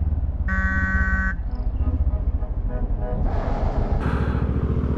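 A motorcycle engine runs low and steady in traffic. A vehicle horn gives one short blast about half a second in, a warning honk at a car cutting into the lane. About three seconds in, a louder rushing noise joins.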